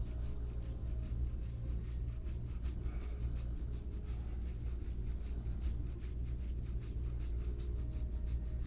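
Soft, repeated rubbing of deep-tissue massage strokes over skin, working a knotted, tangled muscle in the upper back, over a steady low hum.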